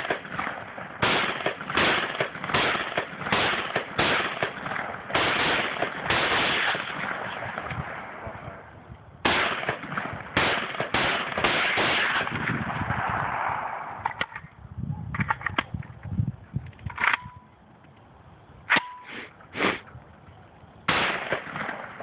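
WASR-10 AK-pattern rifle in 7.62x39 fired semi-automatically in quick strings of shots, about one to two a second, with a short break about eight seconds in. After about fourteen seconds the shots come fewer and further apart.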